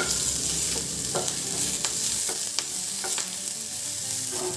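Chopped green chillies and crushed garlic sizzling in hot oil with mustard seeds and cumin, stirred in the pan, with a few sharp clicks along the way.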